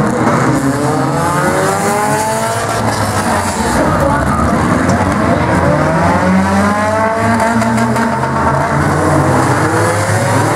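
Several compact figure-eight race cars running hard together, their engines revving up and down in overlapping rising and falling sweeps as they accelerate and lift.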